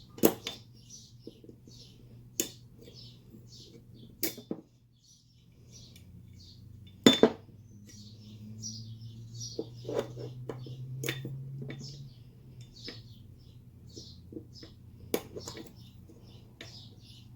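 Sharp, separate clicks and knocks of small pistol parts being handled on a bench, as a slide backplate is fitted to an M&P 2.0 pistol slide, the loudest about halfway through. A low steady hum swells for a few seconds in the middle.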